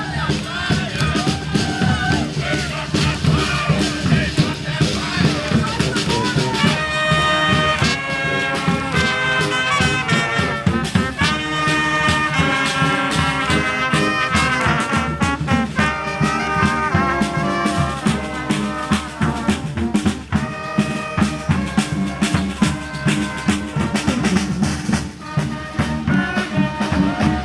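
Street brass band playing, with horns over a steady drum beat; the horn chords come in strongly about seven seconds in.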